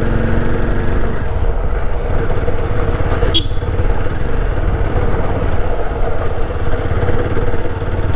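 TVS Apache RTR 160 BS6's single-cylinder engine running steadily at about 30 km/h on a rough dirt road, with a constant low rumble. A brief sharp click about three and a half seconds in.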